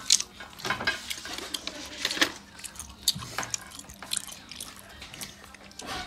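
Cooked clam shells clicking and rattling against each other and the steel bowl as clams are picked out by hand and eaten, in short irregular clicks with wet, messy eating sounds.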